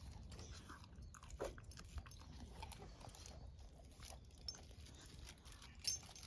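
Dog chewing and licking its lips after eating: faint crunching with scattered small clicks, and a sharper click near the end.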